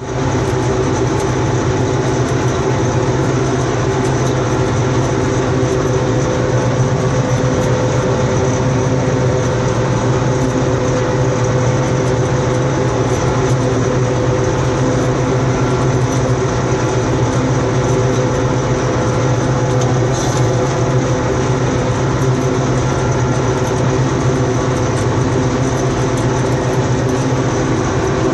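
Deutz M35/70 combine harvester running steadily, a constant loud mechanical drone with a low hum and a higher steady whine.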